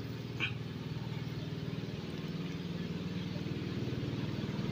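Engine of a long wooden river boat running steadily with a fast, even throb, growing louder as the boat approaches.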